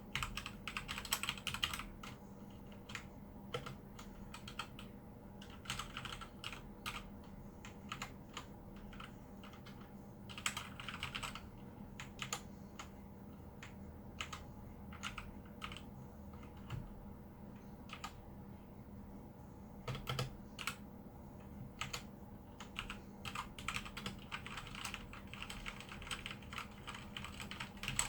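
Pink Redragon K617 Fizz mechanical keyboard being typed on: key presses clacking, in quick runs and then slower scattered presses, over a faint steady hum.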